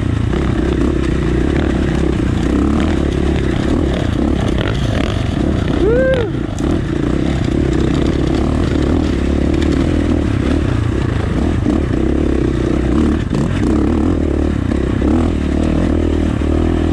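KTM 450 dirt bike's single-cylinder four-stroke engine running under load up a steep, loose rocky climb, steady throughout, with a brief rising-and-falling tone about six seconds in.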